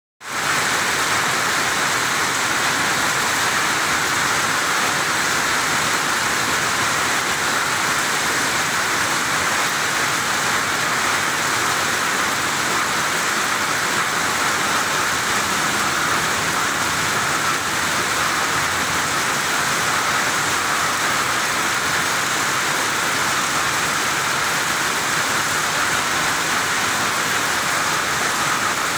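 Heavy thunderstorm rain falling steadily, an even, unbroken hiss.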